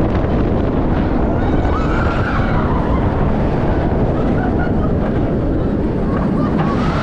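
Wind rushing over the microphone and the running noise of Montu, a Bolliger & Mabillard inverted roller coaster, during the ride, a steady loud rush with a few faint wavering high sounds over it.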